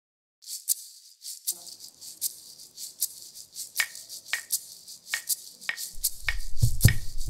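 A pair of maracas shaken in a steady rhythm. A few seconds in, claves join with sharp, ringing wooden clicks, and a low drum comes in near the end.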